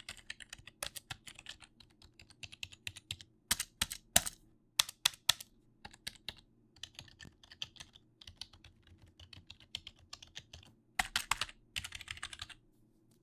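Computer keyboard being typed on: rapid, irregular key clicks, with a few louder hard strikes around four and five seconds in and a fast flurry of keystrokes near the end before the typing stops.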